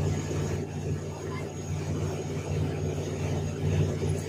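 Steady low drone of a fishing vessel's engine and deck machinery running, with a faint high whine above it.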